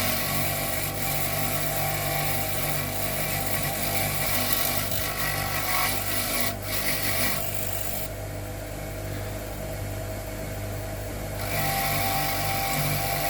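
Clarke bench grinder running with a steady motor hum while a piece of metal is held to the wheel, giving a hissing grind. The grinding stops for a few seconds about eight seconds in and then starts again.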